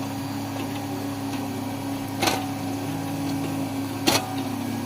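Heavy construction machine's diesel engine running steadily with a low drone, with two sharp clicks, one about two seconds in and one near the end.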